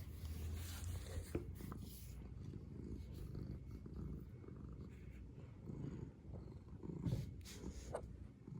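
Domestic cat purring softly, a low steady rumble, with a few faint clicks.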